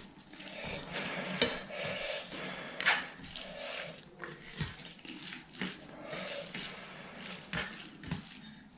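Fingers mixing moist rice on a steel plate: wet squishing with the hand scraping the metal, and a few sharper clicks.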